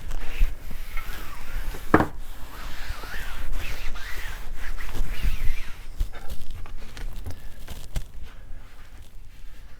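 Cloth rubbing and wiping over a bicycle wheel, cleaning it before the disc brake rotor goes on, with a sharp click about two seconds in. The wiping is busier at first and quieter in the second half.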